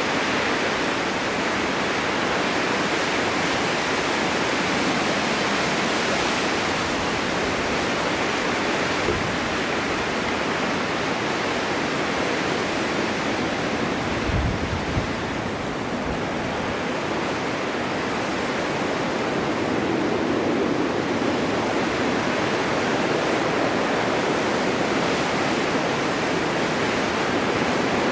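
Steady winter wind blowing snow, a continuous rushing that swells and eases slowly, with a brief low thump about halfway through.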